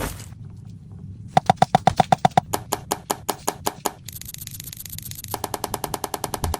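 Rapid, even strokes of a kitchen utensil, about eight a second, in bursts. A steady hiss joins about four seconds in.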